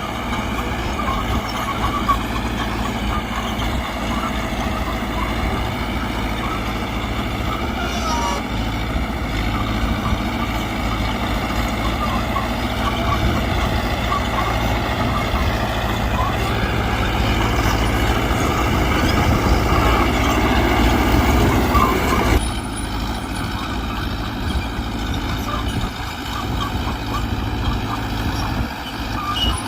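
Mitsubishi BD2G crawler bulldozer working, its diesel engine running steadily under load. The engine pulls harder and gets louder for several seconds, then eases off abruptly a little past two-thirds of the way through.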